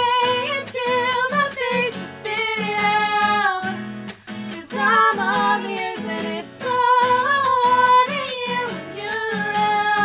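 Two women singing a song together over a strummed acoustic guitar, performed live.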